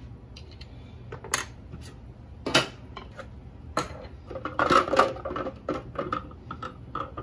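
A metal fork clinking and scraping against a plastic measuring cup while stirring a liquid marinade, then a series of sharp clicks and knocks, loudest and most frequent in the second half, as the fork is set down and the plastic food processor bowl is handled.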